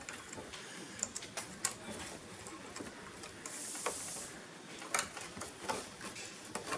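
Light handling noises of a tank-bag strap being threaded through a gap under a motorcycle seat: scattered small clicks and taps, with a short rasping hiss about three and a half seconds in.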